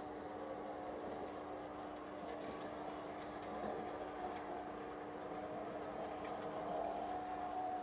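Märklin E19 model electric locomotive (37691), in original factory condition, running light on Märklin M-track: a steady motor hum with wheel rumble, growing a little louder near the end.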